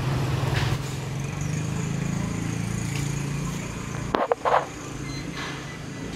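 Street traffic: a motor vehicle engine running, swelling over the first couple of seconds and then easing off. Two or three sharp knocks about four seconds in.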